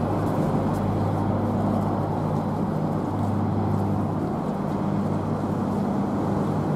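Police hovercraft running steadily: a low hum from its engine and large rear ducted propeller over a dense rushing of air.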